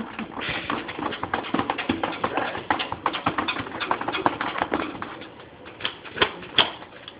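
A small dog's claws scratching and tapping fast and unevenly on a glass door as it paws to be let in, with two louder knocks about six seconds in.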